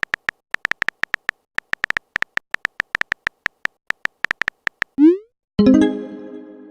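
Quick, irregular clicks of a phone-keyboard typing sound effect. About five seconds in they stop, and a short rising swoop follows, then a pitched electronic chime that rings and fades: a messenger's message-sent and notification tones.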